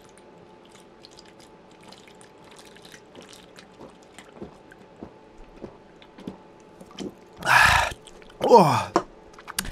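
A man gulping beer from a can in one long draught: a run of quiet swallows. About seven and a half seconds in, a loud breath out, then a falling voiced 'aah' as he stops drinking.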